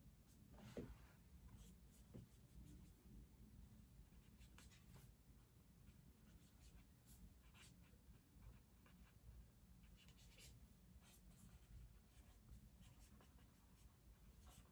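Very faint scratching of handwriting on paper in short, irregular strokes, over a low room hum, with a soft knock about a second in.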